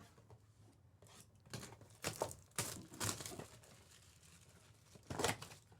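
Foil wrappers of Topps Chrome baseball card packs being torn open and crinkled: several short, separate rips and rustles.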